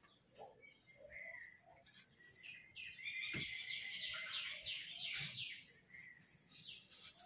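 Birds chirping in the background, faint, with a quick run of high chirps from about three to five and a half seconds in.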